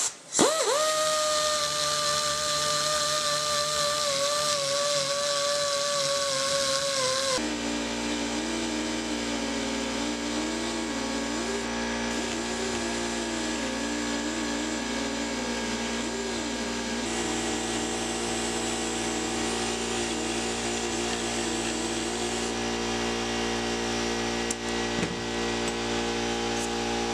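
Pneumatic die grinder with a carbide burr running at a steady high whine as it grinds excess braze off a brazed cast-iron part. About seven seconds in, the sound changes to a lower, steadier mix of sustained tones with one wavering pitch.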